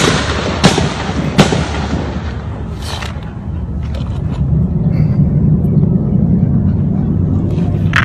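Gunshots in a shootout: three sharp cracks about 0.7 s apart in the first second and a half, each with a trailing echo, then a fainter bang about three seconds in. After that a low rumble builds.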